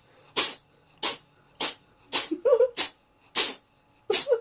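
A cat sneezing over and over in a rapid fit: about seven short, sharp sneezes, one roughly every half second to two-thirds of a second.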